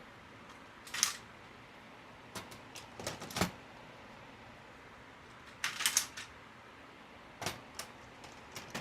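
Scattered plastic clicks and clunks of toner cartridges being handled and fitted into a Brother laser printer drum unit, in short clusters about a second in, around three seconds, around six seconds and near the end.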